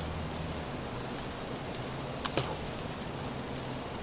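Steady high-pitched chorus of night-calling insects, with a single short click about two seconds in.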